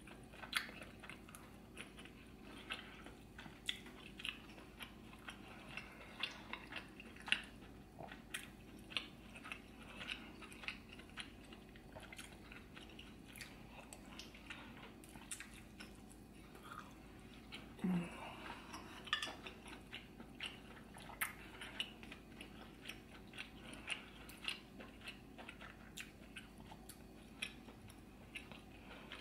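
Close-miked chewing and lip smacking as someone eats a seafood boil in butter sauce, with many short, sharp smacks throughout. A brief vocal sound comes about two-thirds of the way in.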